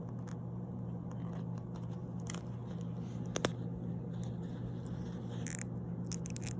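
Light clicks and scrapes of small plastic parts as a mini figure is worked onto its plastic stand, with a sharper click about halfway through and a few more near the end, over a steady low hum.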